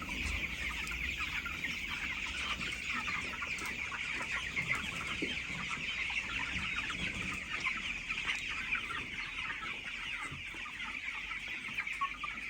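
A flock of chickens calling all at once: many short, high cheeps overlapping in a dense, steady chorus.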